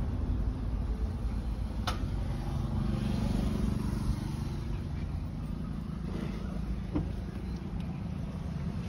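Low, steady motor-vehicle rumble, with two short sharp clicks, one about two seconds in and one about seven seconds in.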